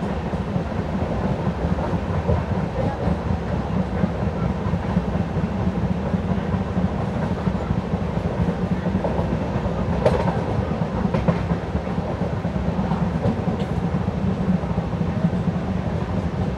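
LHB passenger coach running on the track, wheels rumbling steadily under the floor, with a few sharp clicks from rail joints a little past the middle.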